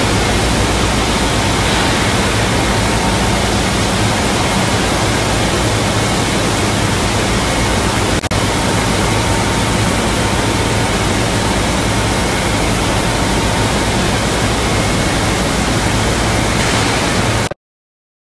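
Plastic crate washing line and its conveyors running: a loud, steady rush of spraying water and machine noise with a low hum underneath, cutting off suddenly near the end.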